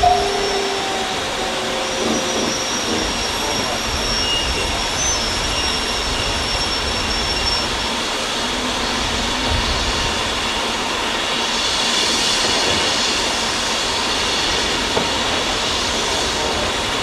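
Steady running noise of a railway carriage rolling along the track, heard from the carriage window, with wind gusting on the microphone. Faint high-pitched squeals come through a few seconds in.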